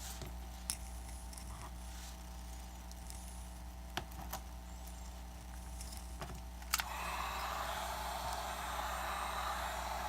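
A few light clicks and taps of tools on the iPad, then about two-thirds of the way in a heat gun switches on with a click and runs as a steady blowing hiss over a low electrical hum.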